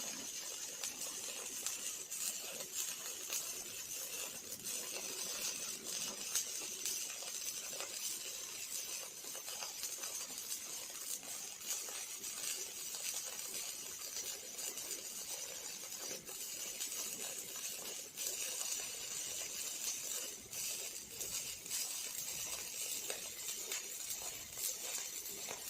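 Robotic arc welding: the arc crackles and hisses steadily, with fine spatter-like clicks and no break.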